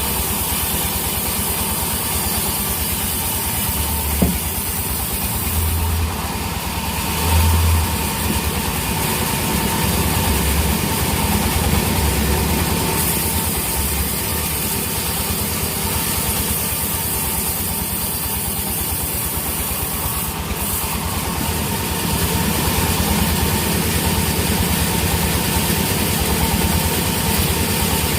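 An engine running at a steady idle, with an even low throb, and one short click about four seconds in.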